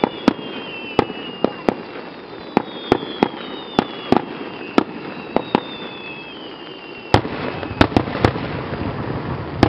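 Fireworks display: a string of sharp, irregular cracks from bursting shells, with faint high whistles slowly falling in pitch. About seven seconds in a louder bang sets off a denser rush of noise and a quick cluster of further cracks.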